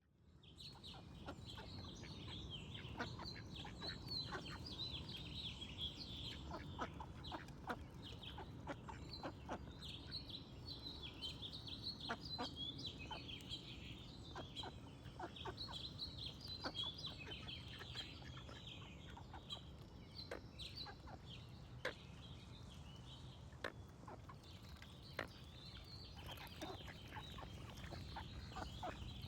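Small birds chirping and singing in a dense chorus, with many short calls from domestic fowl scattered through it, over a steady low rumble.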